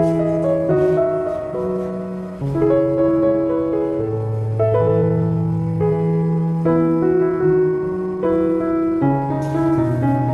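Background music: a slow piano piece with held bass notes and chords changing every second or two.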